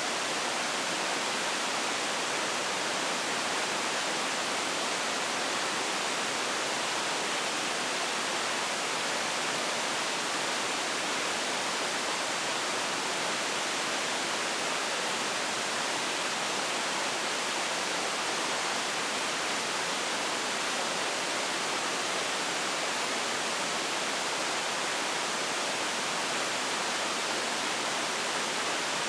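Furnace burning with a steady, even rushing hiss, mostly in the middle and upper range with little low rumble, unchanging throughout.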